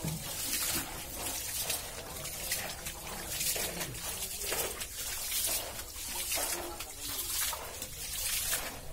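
Water splashing and sloshing in a tarpaulin fish tank, in repeated surges about once a second.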